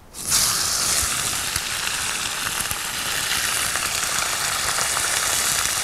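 Thin beef steaks going into hot oil in a frying pan: a sudden loud sizzle as the meat hits the oil, then steady frying with fine crackles.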